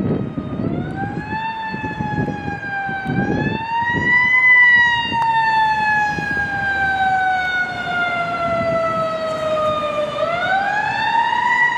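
Fire engine siren wailing: it winds up, falls away slowly over several seconds, and winds up again about ten seconds in. Traffic rumble runs underneath.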